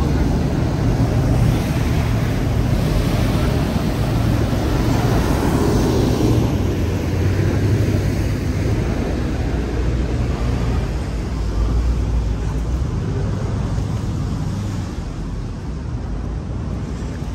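A riverboat's engine drones steadily, with wind and water noise over it, easing off a little near the end.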